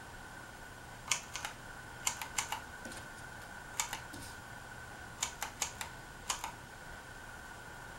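Hunter Reverse Aire ceiling fan running on low with a steady hum. Over it come about fifteen sharp clicks in small quick clusters, from about a second in to about six and a half seconds in.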